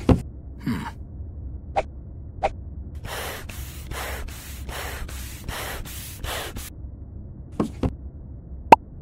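Hand floor pump pushing air: a run of about ten quick hissing strokes, about three a second, as the toy is blown up. A few short clicks come before it, and a sharp, short pop near the end is the loudest sound.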